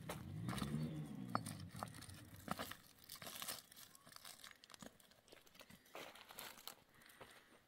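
Footsteps crunching and scraping over loose stone rubble, with dry branches crackling and rustling in a carried bundle. In the first two seconds a short low call rises and then falls in pitch.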